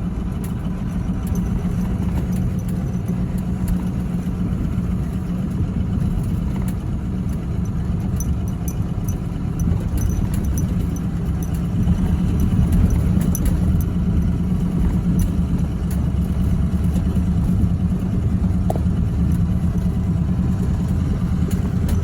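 Vehicle engine running steadily under load while driving through soft snow, a low drone throughout. A light, regular metallic ticking is heard over it in the first half.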